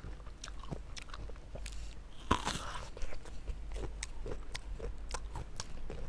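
Close-up eating sounds of a person biting and chewing fruit: a run of small wet mouth clicks, with one louder juicy bite about two and a half seconds in.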